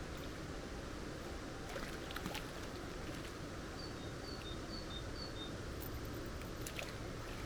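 Steady rushing of a mountain stream, with a small bird giving a quick run of high chirps alternating between two pitches about halfway through, and a few faint clicks.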